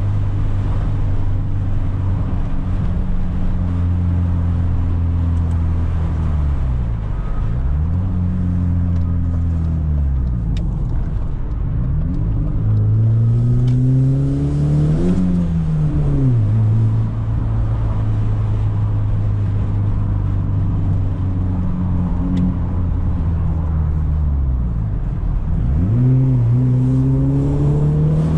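BMW E46 320i inline-six with a loud exhaust, heard while driving. The engine note holds steady for stretches and several times falls away and climbs back up, rising to a peak about halfway through before dropping again.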